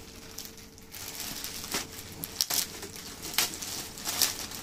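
Plastic polybag around a T-shirt crinkling and rustling as it is handled, with several short, sharp crackles.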